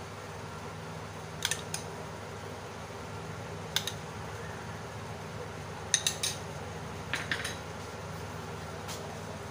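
Metal spoon clinking against the side of a metal cooking pot: several short, sharp clinks in small groups of one to three, over a steady low hum.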